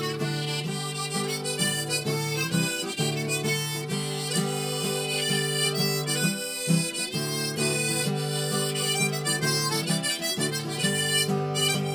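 Harmonica playing an instrumental passage in chords, in a steady rhythm.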